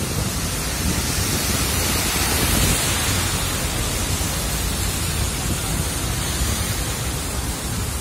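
Heavy downpour of rain, a steady loud rushing hiss.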